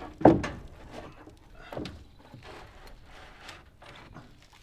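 Wooden framing lumber knocking into place on a roof frame: one heavy thunk about a quarter second in, then several lighter, irregular knocks and scrapes of wood.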